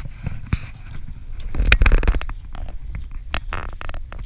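Wind rumbling on the microphone, with knocks, scrapes and rustling from the camera being handled and moved; the loudest scrape comes about two seconds in.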